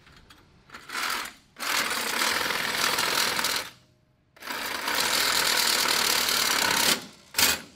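Cordless reciprocating saw cutting through a steel frame tube, running in several runs of one to a few seconds that start and stop.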